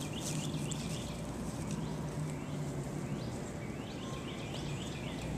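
A bird calling in short runs of quick rising chirps, repeated several times, over a steady low hum of outdoor background noise.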